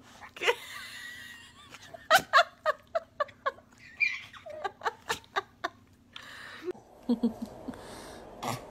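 A small child laughing in a run of short, quick bursts, about three a second, with a few more bursts near the end.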